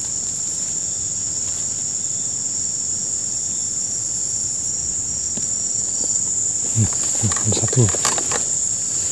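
Steady, high-pitched insect drone that carries on without a break.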